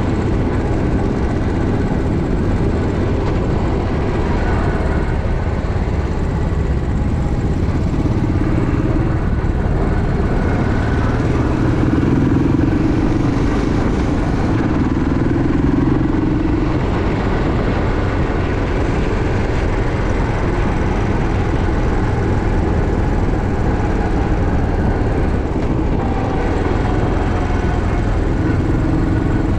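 Steady, loud vehicle noise of engine and road while driving along, with the engine note swelling a little about halfway through.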